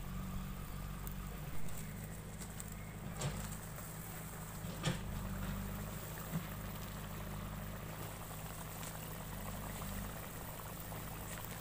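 Pointed-gourd curry boiling in a wide metal kadai over a wood fire, bubbling steadily with a few sharp pops, over a steady low hum.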